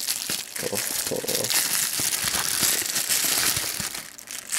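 Bubble wrap being unwrapped and handled, a dense run of crinkling and crackling that thins out near the end.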